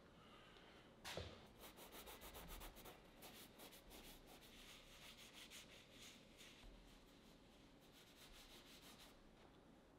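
Fingers and palm rubbing oil paint into a canvas in quick back-and-forth scrubbing strokes, several a second, with a faint rasp from the canvas weave. There is a soft knock about a second in, as the hand meets the canvas.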